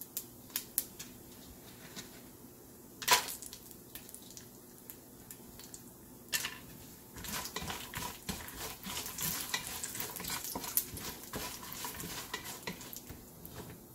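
Sliced coconut and whole spices frying in shallow oil in a pot with a low, steady sizzle. There is a sharp knock about three seconds in and another after about six seconds. Through the second half a bamboo spatula scrapes and stirs against the pot with a dense run of small clicks.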